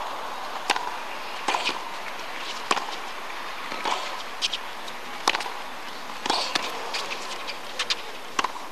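Tennis rally on a hard court: a serve about a second in, then a run of sharp racket-on-ball hits and ball bounces, roughly one a second, some in quick pairs.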